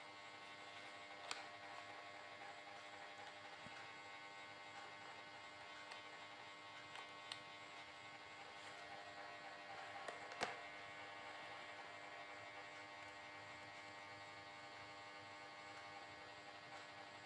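Faint, steady electrical mains hum, with a few soft clicks, the loudest about ten seconds in.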